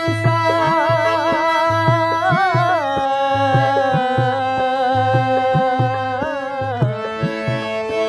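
Harmonium playing a melody in long held notes over a steady dholak beat.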